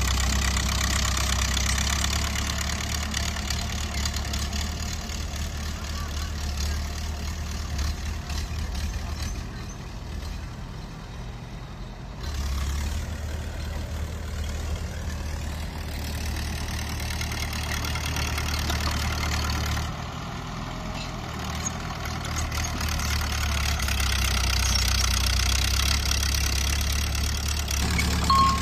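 Heavy earthmoving machine's engine running steadily, with sudden drops and rises in level a few times.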